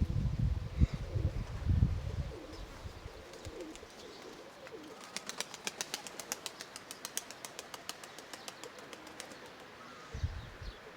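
Nikolaev pigeons' wings flapping in a rapid, even series of claps through the middle few seconds. Wind buffets the microphone with a low rumble at the start and again near the end.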